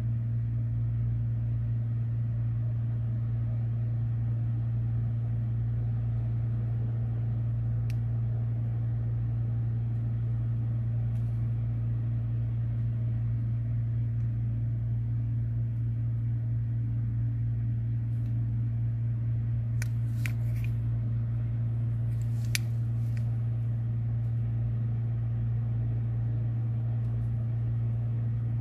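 Steady low hum of an electrical or mechanical device, unchanging throughout, with a few faint clicks about twenty seconds in.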